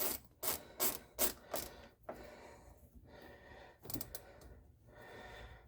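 Hand ratchet clicking in short strokes, about two or three clicks a second for the first couple of seconds, then a few scattered clicks and knocks, as screws holding a door lock actuator are tightened.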